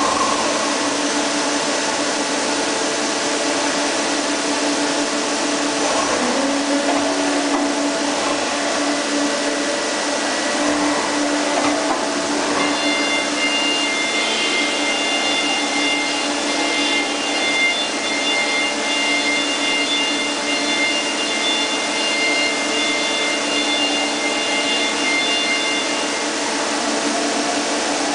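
Colchester Tornado 110 CNC lathe running, a steady mechanical whine from the spindle and drives as the turret brings a drill up to the end of the bar in the chuck. About halfway through, a higher whine of several tones joins in.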